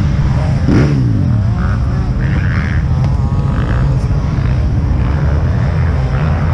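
Off-road motorcycle engine heard from the rider's helmet, running hard with a rise and fall in revs about a second in, over steady wind buffeting the microphone.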